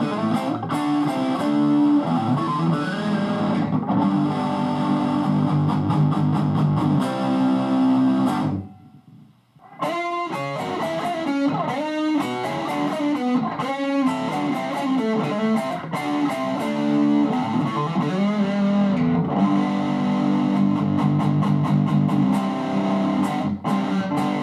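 Electric guitar played through a Marshall DSL valve combo amp, with chords and picked riffs on a crunchy, lightly overdriven tone. The playing stops for about a second roughly a third of the way in, then resumes with short, choppy chords.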